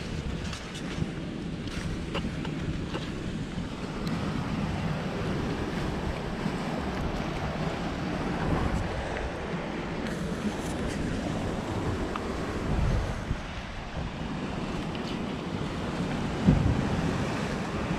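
Wind buffeting the microphone over surf washing against a rocky shore, a steady rushing noise, with one sharp thump near the end.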